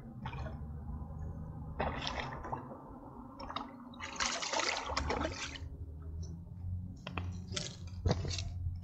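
Water splashing and sloshing in several short, irregular bursts, the longest about four seconds in.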